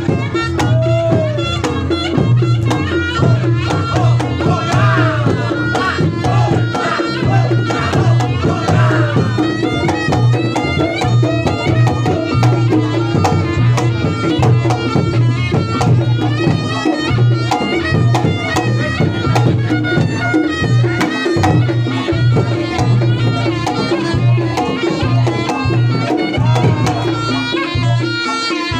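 Reog Ponorogo gamelan accompaniment playing continuously: quick kendang drum strokes over steady low gong tones, with a high wavering melody on top.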